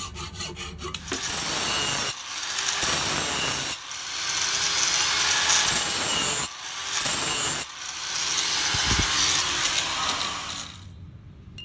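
A hacksaw cuts copper sheet held in a vise with quick, even strokes. About a second in, an angle grinder with an abrasive disc starts grinding the copper edge, a loud hissing grind with a few brief breaks that stops near the end.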